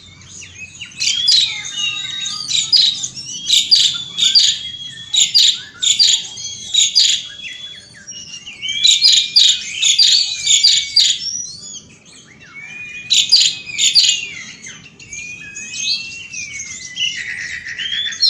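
Asian pied starling (jalak suren) singing a long, continuous song. Rapid runs of stuttering, clicking notes alternate with gliding whistles, broken by short lulls about 8 and 12 seconds in.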